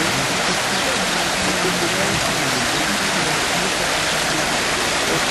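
Steady rush of water spilling over a stone step into a shallow stream, with faint voices of people underneath.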